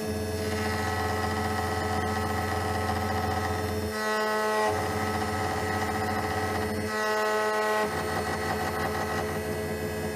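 Automatic key cutting machine running with a steady motor hum, its tone shifting briefly twice.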